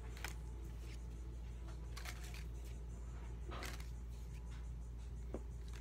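Pokémon trading cards being handled and slid through the hands: a few short, soft rustles spaced apart, and a small click near the end, over a steady low hum.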